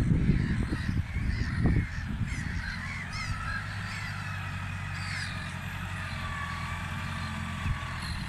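A flock of gulls calling repeatedly over a ploughed field, over the steady hum of a John Deere 6120M tractor's four-cylinder diesel engine pulling a plough. A louder irregular low rumble fills the first couple of seconds.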